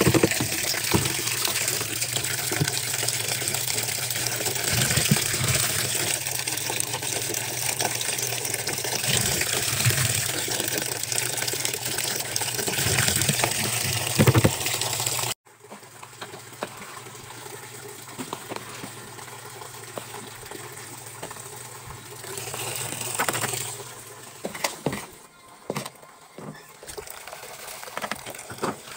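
Water streaming from the dispenser of a top-loading washing machine into the drum as it fills, splashing onto sudsy water. The sound drops abruptly to a quieter pour about halfway through.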